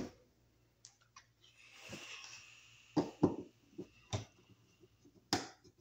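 Hand tools and copper wire clicking and tapping against a steel electrical box as a wire loop is closed and set under a screw, in a few scattered strikes, the loudest after about three seconds. A soft rustle about two seconds in.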